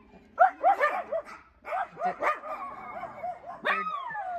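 Schnauzers barking in a quick run of short barks, then one long falling howl near the end.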